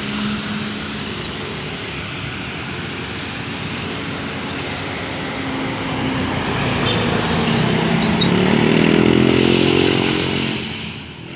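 Bus engine running and pulling away. Its note rises in pitch and grows louder past the middle, then fades near the end.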